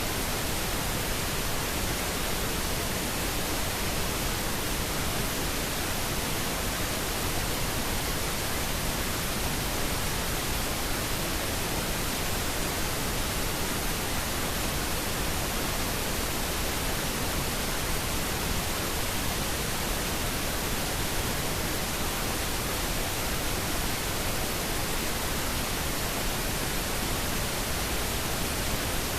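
Steady white-noise static hiss, even and unchanging, used as a masking track to hide subliminal spoken affirmations.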